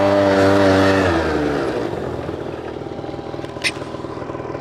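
Small quad bike engine held at high revs, then the throttle is let off about a second in and the revs drop away to a lower, quieter running. A single sharp click comes near the end.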